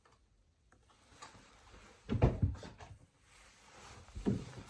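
Cardboard product box and packaging being handled and opened, with dull thumps about two seconds in and again near the end.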